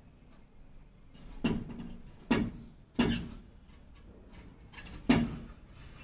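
Four sharp knocks with short decaying tails: three in quick succession from about a second and a half in, then a louder one about five seconds in.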